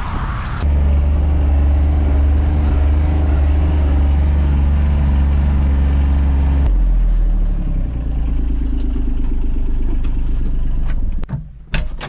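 John Deere Gator utility vehicle's diesel engine running as it drives across a field, heard from inside the cab as a steady low drone that drops in pitch about seven seconds in as it slows. Near the end the engine sound falls away and the cab door clicks open.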